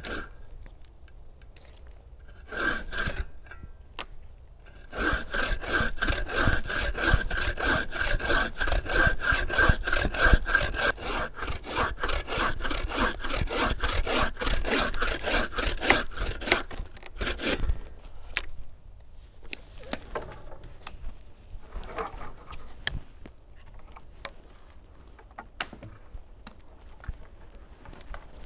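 Hand saw cutting through a fallen log: a few short trial strokes, then about twelve seconds of fast, even back-and-forth strokes with a thin steady ring under them. Near the end, scattered light snaps and rustles in the forest litter.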